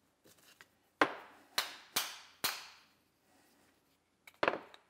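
A series of sharp clicks and taps from a wooden grip panel being worked off a steel revolver grip frame: four crisp clicks about half a second apart, then a couple of quieter ones near the end.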